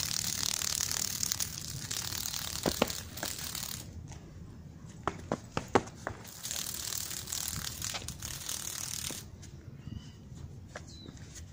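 A cicada buzzing in harsh, rasping bursts. The buzz cuts off about four seconds in, starts again for about three seconds, then stops. Scattered sharp clicks come in between, the loudest a quick few in the gap.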